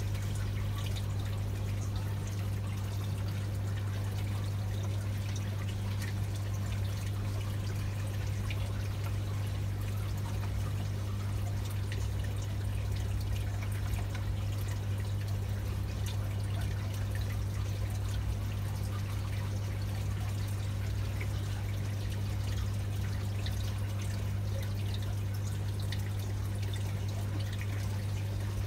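Aquarium equipment running: a steady low hum with water trickling and splashing continuously.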